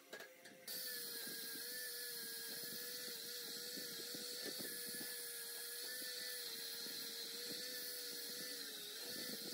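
Electric angle grinder with a sanding disc running against a steel motorcycle fork tube: a steady motor whine with abrasive hiss. It starts abruptly under a second in, and its pitch sags briefly near the end.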